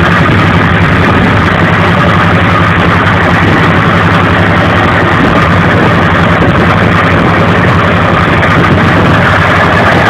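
A small boat's inboard engine running steadily at an even speed, heard close up.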